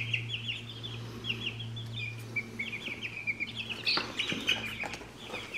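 A brooder full of young meat chicks peeping continuously, many short high cheeps overlapping, over a steady low hum.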